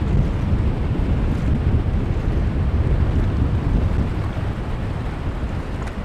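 Sea surf breaking and washing in around a rocky shore, heavily buffeted by wind on the microphone as a steady low rumble, easing a little in the last couple of seconds.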